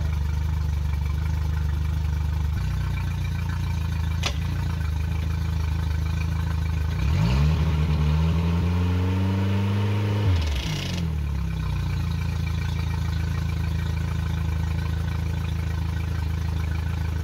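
Mercury 60 hp EFI four-stroke outboard, four-cylinder, idling steadily on its first run after a water pump replacement. About seven seconds in it is revved up, held for about three seconds, then drops back to idle. A single click comes about four seconds in.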